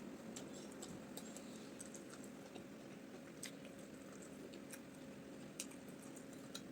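Close-miked chewing of soft omotuo rice balls and peanut soup, with irregular small wet mouth clicks and smacks, one sharper click about five and a half seconds in.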